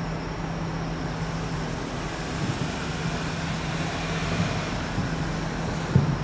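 Distant aerial firework shells bursting, heard as dull low booms several times, the strongest near the end, over a steady low hum.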